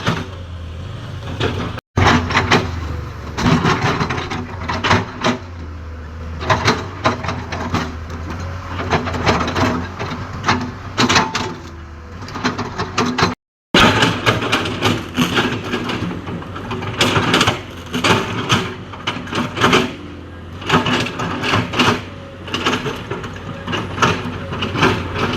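Komatsu PC200-7 excavator's six-cylinder diesel engine running steadily under work, with many sharp cracks and knocks as the machine breaks and pushes over a tree. The sound cuts out briefly twice.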